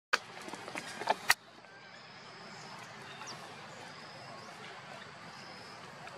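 Steady outdoor background noise with a few faint, short high chirps. Several sharp clicks fall in the first second and a half.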